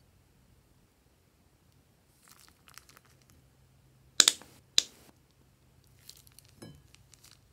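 Plastic piping bag crinkling and crackling as it is squeezed. Faint scattered crackles throughout, with two loud sharp crackles a little past the middle, about half a second apart.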